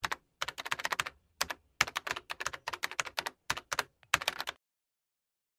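Typing on a computer keyboard: quick, irregular runs of sharp keystroke clicks with short pauses between them, stopping about four and a half seconds in.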